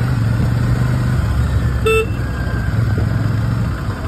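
Royal Enfield Shotgun 650's twin-cylinder engine running steadily at low speed in traffic, with a brief vehicle horn beep about two seconds in.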